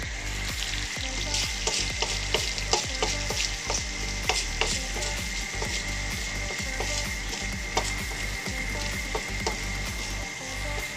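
Corned beef (carne norte) sizzling as it fries in a metal pan, with frequent sharp pops and crackles through a steady hiss.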